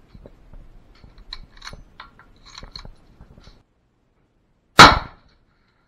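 Light metallic clicks and clinks as the Mosin-Nagant M38 carbine is handled, then a pause and a single loud 7.62×54R rifle shot near the end, dying away quickly.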